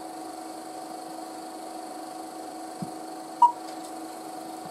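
Steady hum and hiss from the Super 8 film's soundtrack played back through the Elmo GS1200 projector over the blank leader, before the programme starts. A soft thump comes about three seconds in and a short, loud beep half a second later.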